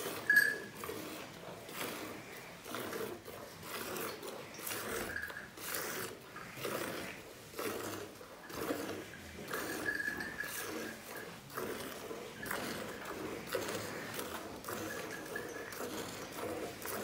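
Cow being milked by hand: jets of milk squirting into a steel pail that is already partly full, in a quick steady rhythm of short hissing strokes.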